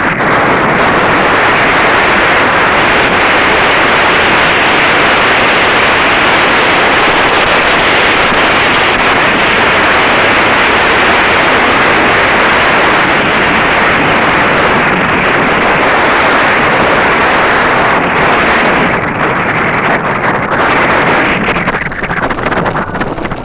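Loud wind buffeting the camera's microphone: a steady, heavy rush that eases slightly near the end.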